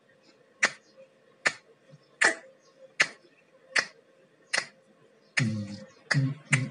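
Fingers snapping in an even rhythm, one sharp snap about every three-quarters of a second. A voice joins in about five seconds in.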